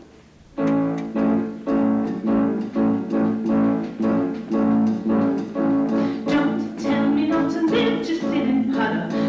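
Live band playing a brisk show-tune intro, led by piano chords struck in a quick repeated pattern with drums, starting suddenly about half a second in.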